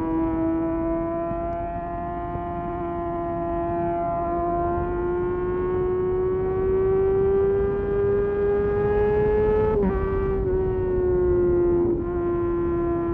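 Kawasaki ZX-6R's 636 cc inline-four engine running at high revs, its pitch climbing slowly. About ten seconds in there is a brief break, after which the pitch drops a little and eases down.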